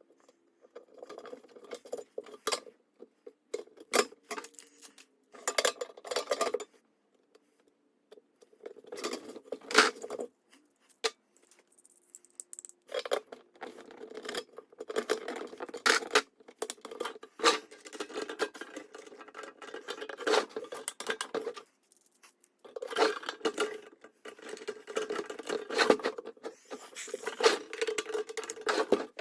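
Small hard parts being handled: clinks, rattles and rubbing come in bursts a second or two long with short pauses between, over a faint steady hum.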